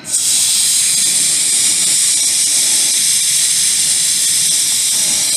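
Air hissing steadily out of a tyre valve as the tyre is let down, starting suddenly and staying loud and even.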